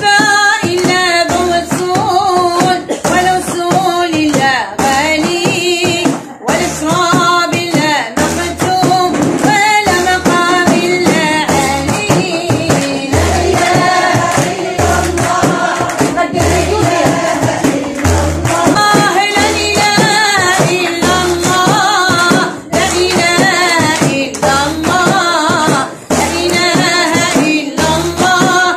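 A woman singing a devotional Moroccan chant in praise of the Prophet, accompanying herself on a bendir frame drum beaten in a steady rhythm.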